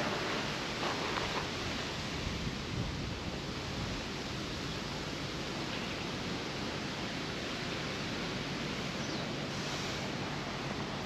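Steady rushing outdoor noise, with a few light rustles in the first second or so.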